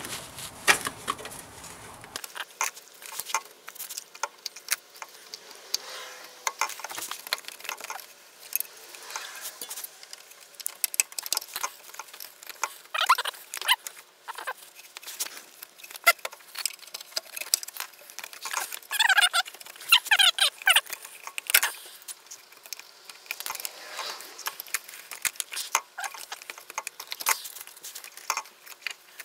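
Hand tools scraping and clicking against the steering rack and the rubber inner tie rod boot as the boot is pried and pulled loose, with scattered sharp clicks and a few short squeaks.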